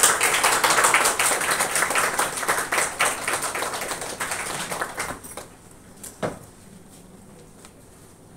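Audience applauding, dying away about five seconds in; a single knock follows.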